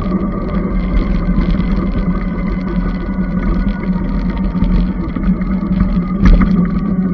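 Magnum Premium electric bike riding along, its motor humming steadily under wind rumble on the microphone. There is a single sharp knock about six seconds in.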